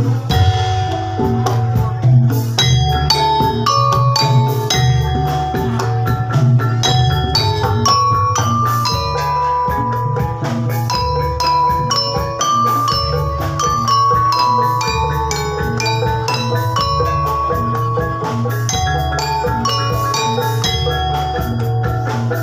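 Javanese gamelan accompaniment for jathilan horse-trance dancing: struck bronze metallophones ringing out a fast, steady run of notes over a low, continuous pulse.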